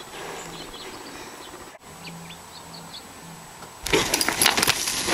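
A few faint bird chirps over quiet outdoor ambience. About four seconds in, a sudden loud clatter of rapid thuds and rattling breaks out: a horse starting to buck, its hooves pounding the dirt and the saddle and tack jolting.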